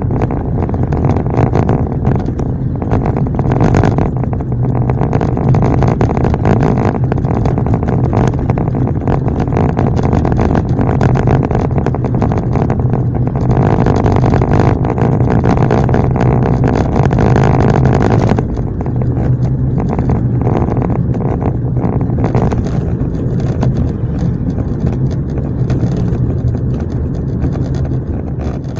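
Car driving on a wet road, heard from inside the cabin: steady engine drone and tyre noise. It grows louder about halfway through and drops back suddenly a few seconds later.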